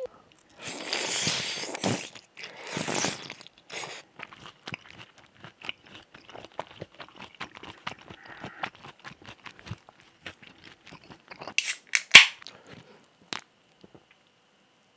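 Close-miked eating of cold squid mulhoe: two long noisy slurps of noodles in the first few seconds, then steady chewing with many small wet clicks. Near the end come a few loud, sharp mouth or drink sounds.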